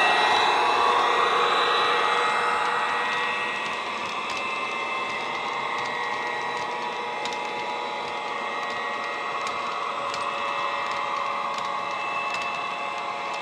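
Sound from a model Class 68 locomotive's ESU LokSound decoder and speaker: a simulated diesel engine running under power, fading over the first few seconds as the loco pulls away, then holding a steady drone. Faint scattered clicks come from the passing wagons' wheels on the track.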